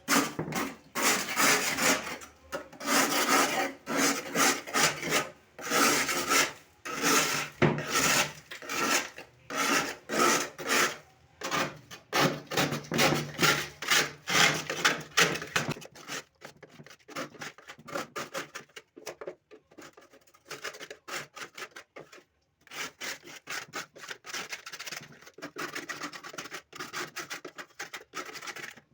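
Rapid, repeated scraping strokes of a hand tool scooping built-up ice out of a fridge's freezer compartment. The scraping is louder and denser for about the first half, then lighter and sparser.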